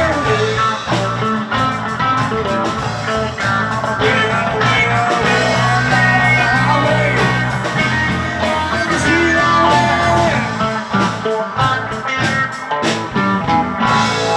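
Live rock band playing: electric guitar lead over electric bass and a drum kit, with steady drum hits throughout.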